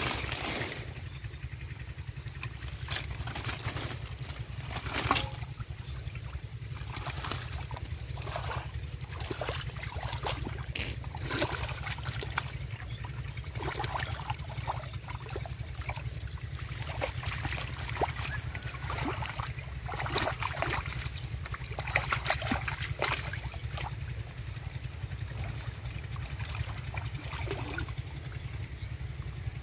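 Hands splashing and sloshing in shallow muddy water, in irregular bursts of trickling and splashing, over a steady low rumble.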